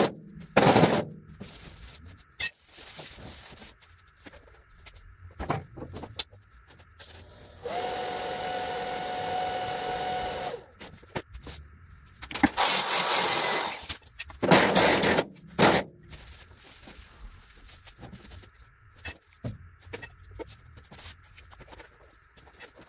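Hammer-and-dolly planishing of a welded steel car-roof seam: sharp metallic hammer blows in irregular bursts, the loudest at the start and about a second in. A steady hum lasts about three seconds from roughly eight seconds in, and loud noisy bursts follow around thirteen to fifteen seconds.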